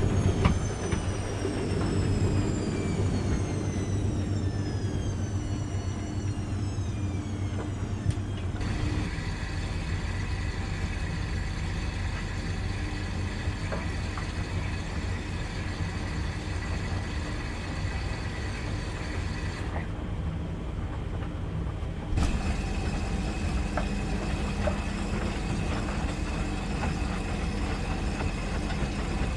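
Washing machine running: its motor whine falls steadily in pitch over the first eight seconds as the drum slows, over a constant low hum. The machine then runs on with a steady hum and whine that switches abruptly in tone a few times.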